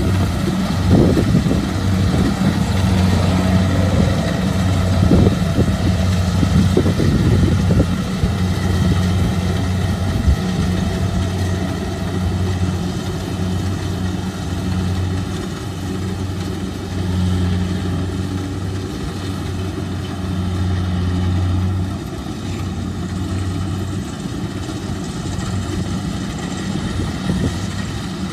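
Kubota DC-70 Plus combine harvester running under load as it cuts and threshes rice: a steady engine-and-machinery hum with a few knocks in the first several seconds. The low hum eases slightly about three quarters of the way through.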